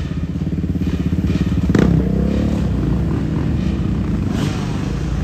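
A sport quad's (ATV's) engine running with a fast, steady pulse. About two seconds in there is a sharp knock, after which the engine note rises and falls as it is revved.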